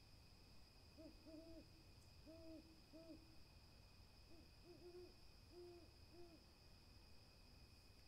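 An owl hooting faintly in two quick runs of short, low hoots, five or six notes in each run, with a short pause between the runs. A steady high-pitched tone sounds throughout.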